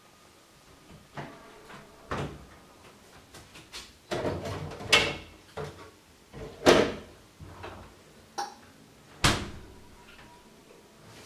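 Refrigerator door being opened and shut, with things taken out and handled: a series of separate knocks and clunks, the loudest around the middle.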